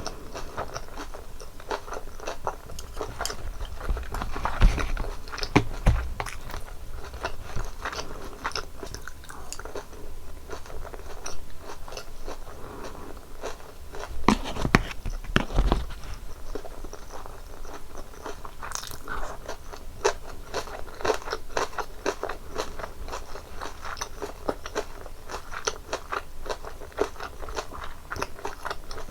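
Close-miked eating: crunching bites into crispy breaded cheese pork cutlet and chewing, with a steady stream of crackles and heavier bites about five seconds in and again around fifteen seconds.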